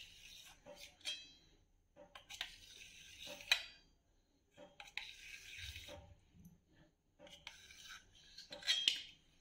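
Steel knife scraping against the inside of a stainless steel pot as it cuts through set colostrum pudding, in four bouts with a few sharp metallic clinks.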